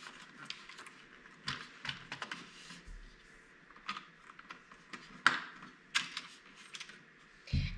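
Small plastic Polly Pocket playset pieces and mini figures being handled: a run of light, irregular clicks and taps, with one sharper knock a little past halfway.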